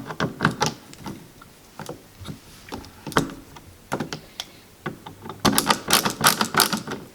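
Irregular clicks and taps of wall switches and their mounting hardware being worked into an electrical box, with a denser run of rapid clicks about five and a half seconds in.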